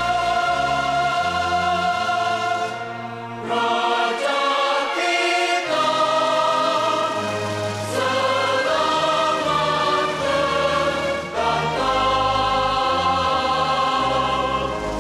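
A recorded anthem sung by a choir with orchestral accompaniment, in sustained chords over a moving bass line. The music grows quieter a few seconds in, and the bass drops out briefly before the full sound returns.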